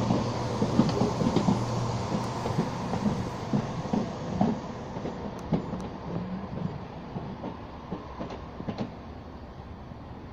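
Diesel passenger train pulling away. Its steady engine hum drops out about two seconds in, then its wheels click and knock over the rail joints as the train recedes and fades.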